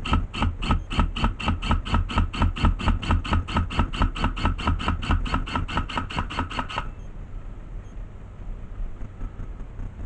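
Airsoft gun firing a long, even string of shots, about five a second for some seven seconds, then stopping abruptly. Wind rumbles on the microphone throughout.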